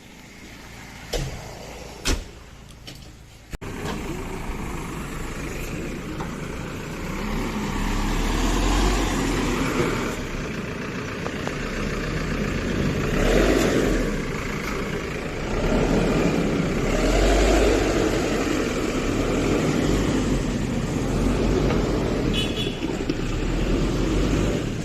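Heavy vehicle engine and road noise with a deep low rumble, swelling and fading several times as machines pass. A few sharp clicks in the quieter first few seconds, then the noise starts abruptly.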